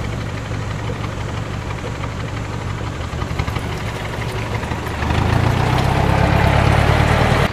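Diesel engine of a cab-over truck labouring as it pulls through deep mud, growing clearly louder about five seconds in as it is worked harder.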